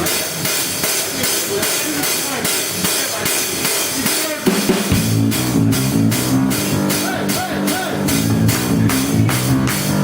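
Live rock band starting a song: a drum-kit beat with cymbals, joined by a bass line and the rest of the band about four and a half seconds in.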